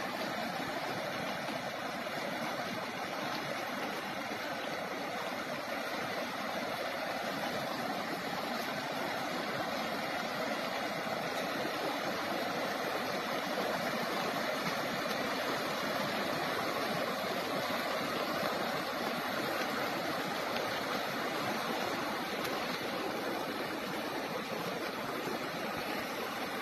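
Floodwater of a swollen river rushing, a steady, unbroken roar of water.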